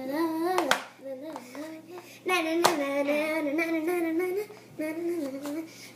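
A girl singing a wordless tune in long, gliding notes, with a pause partway through. A couple of sharp clicks of a metal ice cream scoop cut in.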